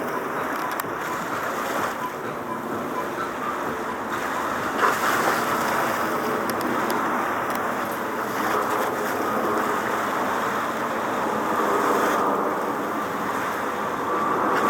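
Steady outdoor rush of distant road traffic and wind on the microphone, with a brief thump about five seconds in.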